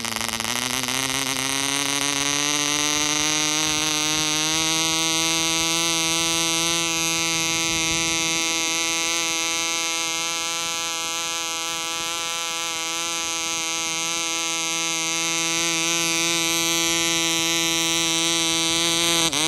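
Taipan 1.00 cc model diesel engine, a small two-stroke, running at full speed on a test stand with its propeller turning: a high-pitched buzz. Over the first few seconds it speeds up, rising in pitch, then holds steady. At the very end its pitch drops sharply as it dies.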